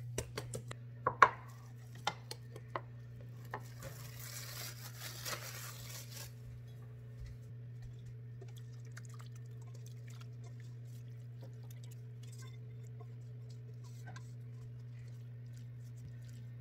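A steel pot and spoon clink sharply a few times, then thick blueberry pie filling is scraped and poured wetly from the pot into a pie crust for a couple of seconds, followed by light scraping and spreading. A steady low hum runs underneath.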